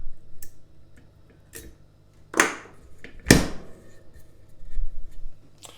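A lock cylinder and a dimple pick-decoder being handled: a handful of sharp clicks, the two loudest about a second apart near the middle.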